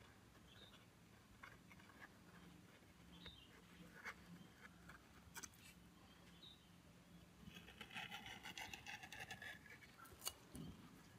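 Faint small clicks and taps of tools and parts being handled on a phone. A scratchy scraping runs for about two seconds near the end, followed by a sharper click.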